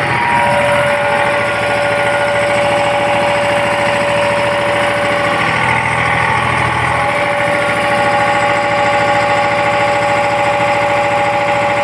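Eicher 485 tractor's three-cylinder diesel engine running steadily at raised speed, about 1700 rpm.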